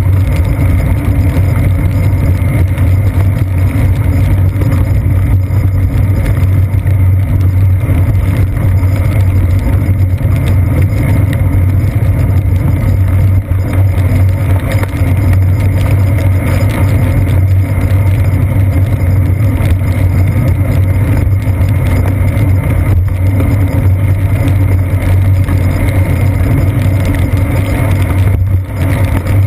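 Loud, steady low rumble of a bicycle ride on wet streets, picked up by a seat-post-mounted GoPro: road vibration and wind noise on the camera.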